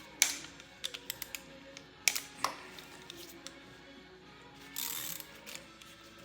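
Soft background music with scattered sharp metallic clicks and clinks of hand tools and engine parts as the timing chain tensioner comes off a 5.7 Hemi, plus a brief noisy burst about five seconds in.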